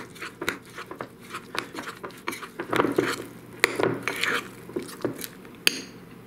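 Metal spoon stirring a thick oat-and-fig cookie dough in a ceramic bowl: irregular clinks and scrapes of the spoon against the bowl, stopping near the end.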